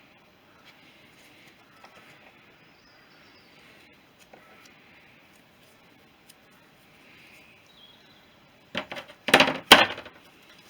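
Faint background, then near the end a brief clatter of sharp metal-on-metal clinks, two loud strikes close together among lighter taps, like steel tools or engine parts being handled and set down.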